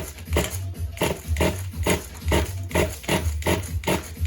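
Electronic background music with a steady beat of about two strokes a second and a heavy bass.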